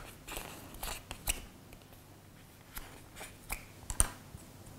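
An awl punching a hole through stiff cardboard tubes: a few separate sharp crunches and clicks, the loudest about four seconds in.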